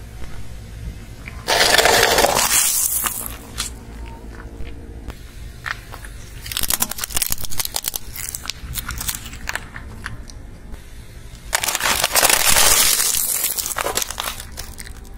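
A car tyre rolling over and crushing things: a plastic instant-noodle cup gives way with a loud crunch about two seconds in, small plastic objects crack and crackle in a quick run of snaps in the middle, and a clear plastic food container is crushed with another loud crunch near the end. A low steady rumble runs underneath.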